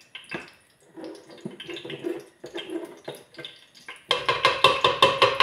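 Red palm oil squeezed from an upturned plastic bottle into a stainless steel pot: soft glugs and clicks, then from about four seconds in a louder, rapid sputtering crackle as the oil spurts out.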